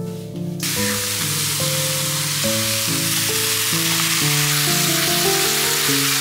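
Cabbage, tofu, tomatoes, peppers and thinly sliced meat sizzling in a hot stainless steel frying pan, a steady hiss that starts suddenly about half a second in, over background music with a melody.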